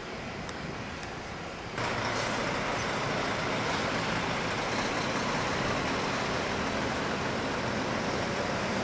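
Steady street traffic noise with no distinct engine or horn standing out, jumping abruptly louder about two seconds in.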